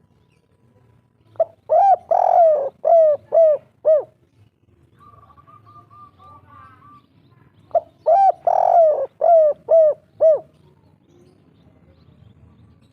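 A spotted dove (tekukur) cooing, its 'kuk 3' song: two phrases about six seconds apart, each a short lead note, a longer rolling coo, then three clipped coos.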